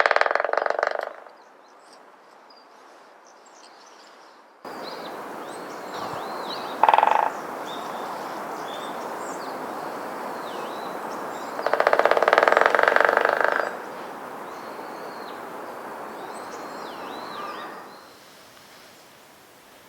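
Woodpecker drumming, most likely a White-backed Woodpecker's: rapid rolls of bill strikes on wood. One roll ends about a second in, a brief one comes about seven seconds in, and a longer roll of about two seconds comes past the middle. Thin high calls of other small birds sound in the background through the middle part.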